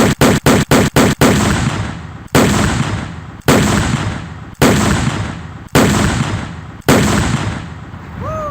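The blast of an anvil shoot's black-powder charge, replayed in an edited loop. First comes a rapid stutter of booms about five a second, then the same boom about once a second, each with a decaying rumble.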